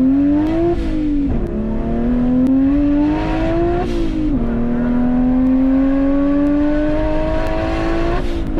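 Tuned BMW 135i's turbocharged straight-six accelerating hard through the gears. The engine note climbs steadily and drops sharply at each of three upshifts, about one, four and eight seconds in.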